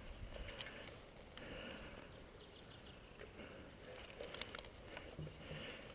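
Quiet outdoor background with a few faint, scattered clicks.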